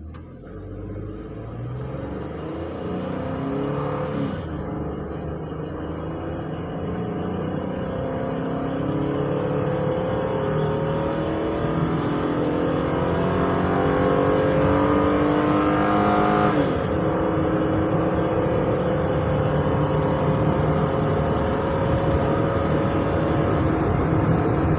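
Ford Transit van's engine accelerating hard through the gears. Its pitch climbs, drops at two upshifts about 4 and 17 seconds in, then holds steady at cruising speed with road noise. This is a road test for the random misfire the van is being diagnosed for.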